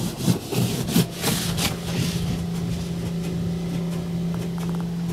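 PDQ Tandem automatic car wash heard from inside the car. Cloth brush strips rub and slap against the car in the first second or so. After that a steady low machine hum runs under water spraying over the car.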